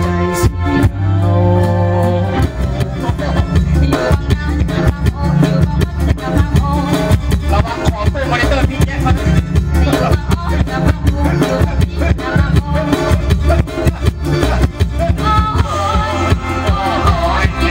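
Loud live stage music played over a PA, with a fast, dense beat and heavy bass; a singing voice comes in at times, most clearly near the end.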